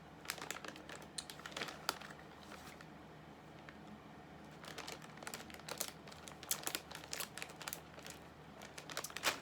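Crinkly snack packaging being handled close to the microphone, crackling in several bursts with short pauses between them.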